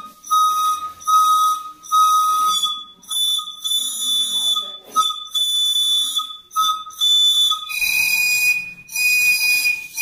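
A short red plastic pipe blown like a whistle, its note made by the air column vibrating inside. It gives a few short whistle blasts about one a second, then the pitch jumps higher about three seconds in and changes again just before eight seconds into a longer held note.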